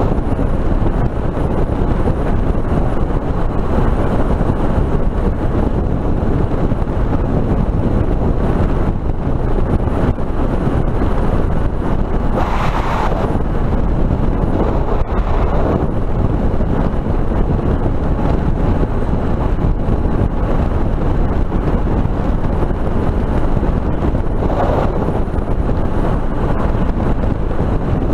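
Wind rushing over a helmet-mounted camera's bare microphone at highway speed, mixed with the Suzuki DR650's single-cylinder engine running steadily. There are brief swells in the noise about halfway through and near the end.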